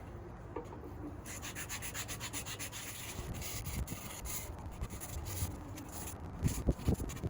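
Wooden board being hand-sanded with a small, worn piece of sandpaper: quick back-and-forth rasping strokes that start about a second in, with a few low thumps near the end.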